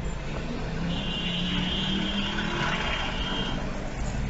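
Road traffic: vehicle engines running with a steady low rumble. A high, thin steady tone sounds from about a second in and stops about three and a half seconds in.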